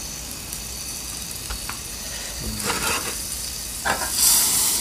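Margarine sizzling and frying in a pan, with a few short clicks along the way. The sizzle grows louder near the end.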